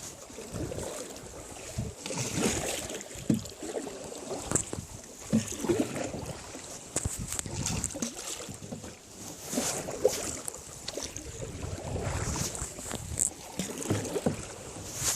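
Water sloshing and wind on the microphone, with scattered small knocks and low thumps.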